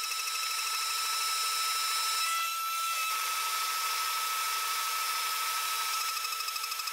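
CNC spindle and single-flute endmill trochoidally milling 5083 aluminium (AlMg4.5Mn): a steady high whine with a rhythmic pulse as the cutter engages in repeated loops. About two and a half seconds in the sound breaks briefly as the tool shifts to the other end of the part, then the cutting whine resumes, pulsing more clearly near the end.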